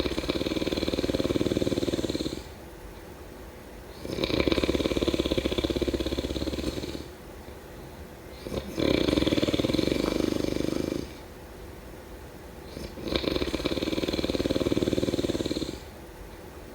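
Snoring in a steady rhythm: four long snores, each about two and a half seconds, coming every four seconds or so, with quieter stretches between.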